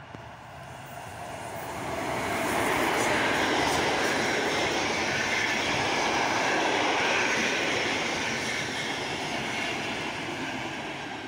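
PKP Intercity passenger train hauled by an EU160 electric locomotive passing close by: a steady rushing rumble of steel wheels on rail. It swells over the first two seconds, holds loud as the coaches roll past, and eases off near the end.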